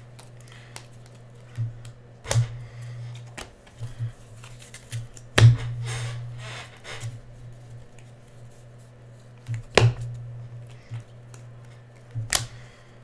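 Bowman Draft chrome baseball cards being handled and sorted: cards slid and flicked against each other, with a few sharp taps, over a steady low hum.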